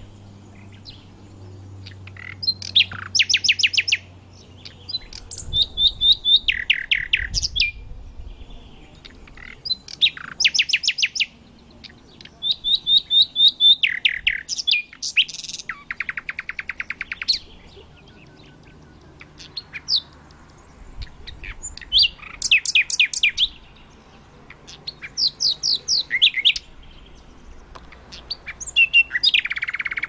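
Thrush nightingale singing: loud phrases of rapid repeated notes and trills, each a second or two long, separated by short pauses.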